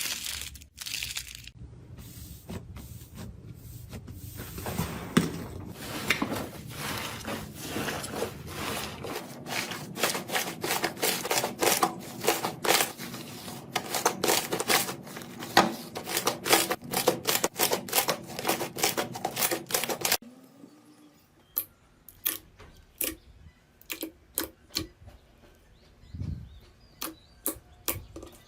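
Slime being squeezed and pressed, with a run of sharp sticky clicks and pops as air pockets burst, about two or three a second. About 20 s in the level drops and the clicks become quieter and more spaced out.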